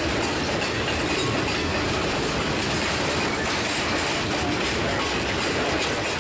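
A freight train's cars rolling past on the rails, a steady, unbroken sound of wheels on track.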